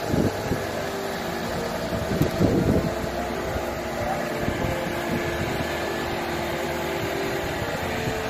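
Mobile crane's diesel engine running at a steady speed during a lift, a constant hum with a few held tones. Wind buffets the microphone briefly at the start and again about two to three seconds in.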